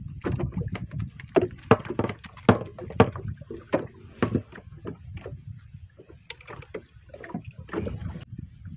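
Handling noise from taking a small fish off a fishing line aboard a small boat: a quick run of sharp clicks and knocks over the first four seconds or so, then a few scattered ones and a short cluster near the end.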